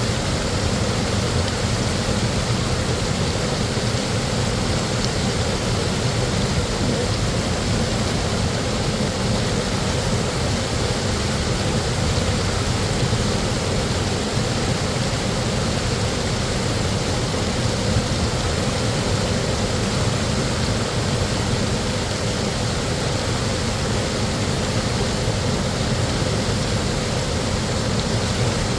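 Large waterfall's deep, steady roar of falling water, even and unbroken, with no change in level.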